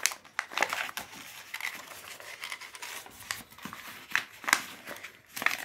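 Sheet of coloured craft paper crinkling and rustling as hands fold and press it into a paper boat, in short irregular crackles.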